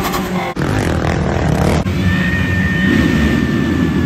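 Quick cuts of engine noise: a Toyota Tacoma pickup's exhaust revving briefly, a short noisy clip, then a field of motocross bikes running together on the start line.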